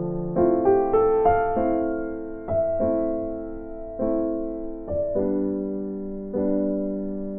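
Background music: a slow, gentle electric piano piece. Chords are struck about once a second and left to ring, with a short rising run of notes about a second in.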